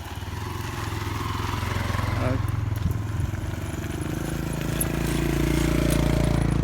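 A motor vehicle's engine running steadily, growing gradually louder over several seconds as it draws near, loudest near the end.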